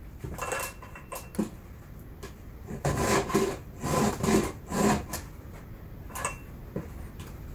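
A file rasping across the cutter teeth of a chainsaw chain during hand sharpening. The first seconds are quieter, with a few light clicks. From about three seconds in come repeated filing strokes, roughly two a second.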